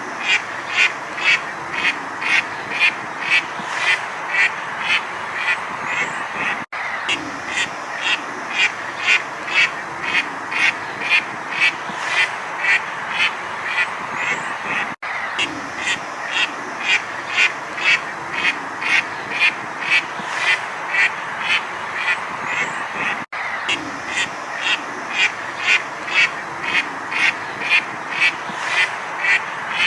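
Duck quacking in a steady, rapid run of about two short quacks a second, over a constant background hiss. The same stretch of recording repeats roughly every eight seconds, each time after a brief dropout.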